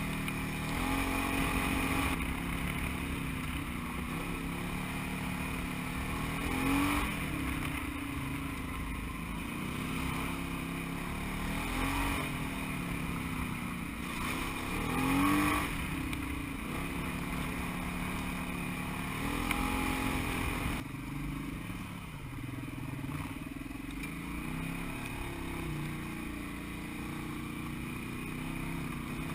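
Side-by-side UTV's engine running while driving along a dirt trail, its pitch rising and falling with the throttle, with brief revs about 7, 15 and 20 seconds in.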